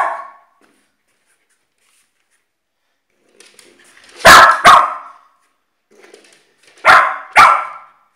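West Highland white terrier barking: two pairs of loud, sharp barks, about four seconds in and again near the end.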